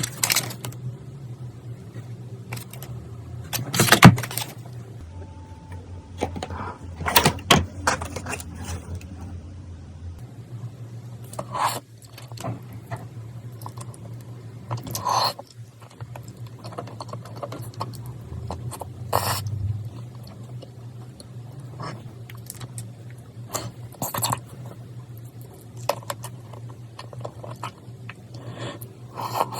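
Scattered clicks, taps and scrapes of objects being handled, the loudest about four seconds in, over a steady low hum.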